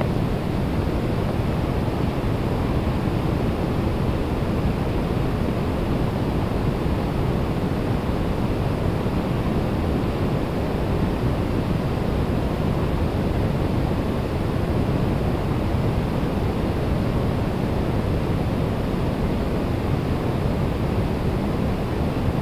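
Steady, unbroken rush of a river running high through rapids, heavy in the low end.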